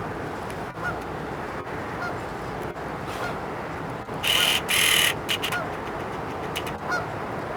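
A duck on a lake calling: two loud, harsh calls back to back about four seconds in, with fainter short calls scattered around them.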